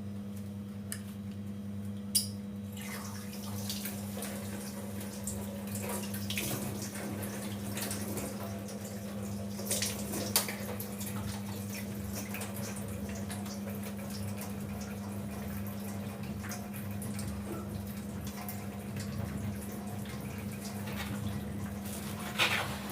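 Water running from a kitchen tap into a sink, with scattered clinks and a few sharper knocks, over a steady electrical hum.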